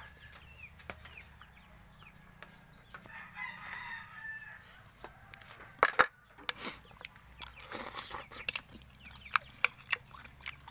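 A rooster crows once, about three seconds in, lasting about a second and a half. A couple of sharp knocks come about six seconds in, followed by scattered quick clicks toward the end.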